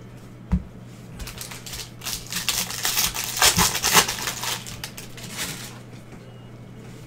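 Plastic wrapper of a Bowman baseball card pack being torn open and crinkled by gloved hands, loudest as it is pulled off the cards, after a light knock about half a second in.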